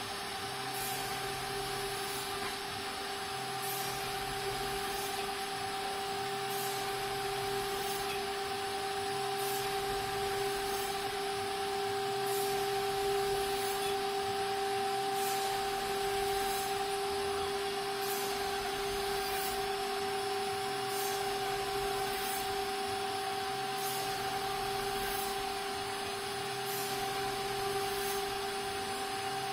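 CNC router running: the spindle gives a steady whine while the gantry moves, with a faint tick about once a second and a low hum that comes and goes every couple of seconds.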